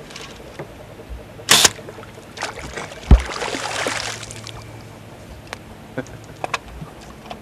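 A compound bow shot lands a sharp, deep thump, and the arrowed long-nosed gar at once thrashes at the surface in a splash that lasts about a second. A brief sharp snap comes about a second and a half in, before the shot.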